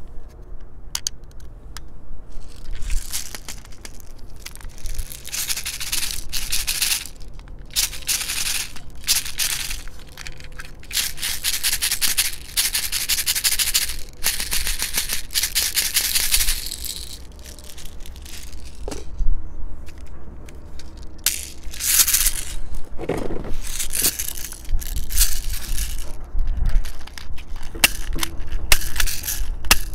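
6 mm plastic airsoft BBs rattling and pouring from a squeeze-bottle loader into a toy airsoft revolver, in long spells. Short plastic clicks of the gun being handled come between the spells.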